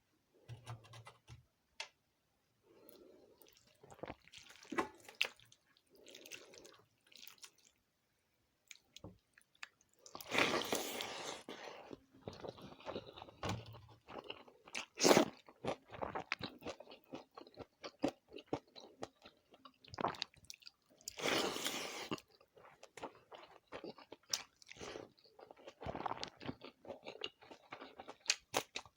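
Close-miked eating: irregular chewing and crunching of a meal of water rice with fried sides and papad. Two louder noisy bursts of about a second and a half come about a third and two thirds of the way through, with a sharp crunch in between.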